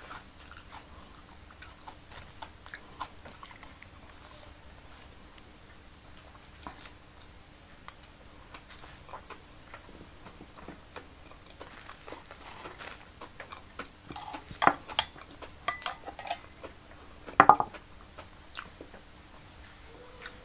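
A person chewing a mouthful of food close to the microphone, with soft wet mouth clicks. A few sharper clicks and knocks come in the last few seconds.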